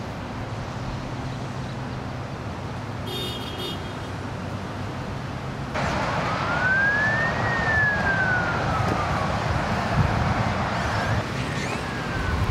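A siren wails once, rising and then falling in pitch, over steady outdoor background noise; a fainter second wail follows near the end.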